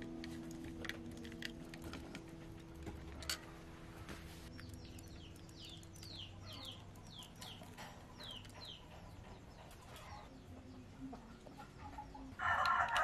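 A bird calling in a quick run of about ten short falling chirps, preceded by a few faint sharp clicks of a screwdriver working on the metal chassis. Background music comes in near the end.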